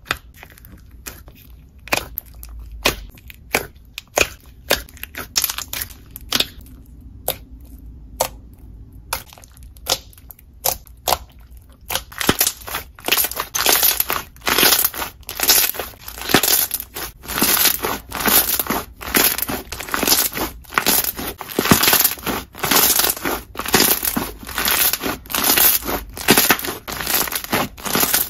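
Thick white slime being poked and squeezed by hand, giving sharp crackling pops: scattered single pops at first, then dense, rapid crackling from about halfway through as the slime is squished between the hands.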